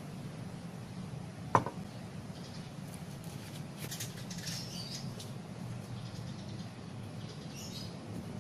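Steady low room hum, with one sharp click about one and a half seconds in and faint high chirps in the background.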